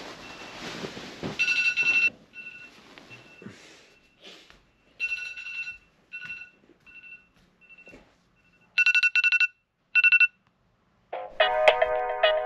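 Electronic alarm beeping at one high steady pitch in short repeated bursts, some groups faint and some loud, with a quick run of about six beeps near the nine-second mark. Music comes in about eleven seconds in.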